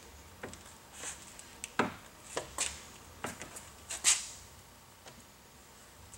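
Hand squeegee working wet tint film against the car door glass: several short swishes and light knocks, the loudest about four seconds in.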